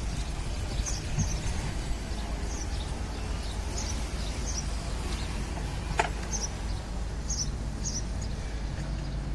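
Small birds chirping, short high chirps every second or so, over a steady low rumble of outdoor background noise; one sharp click about six seconds in.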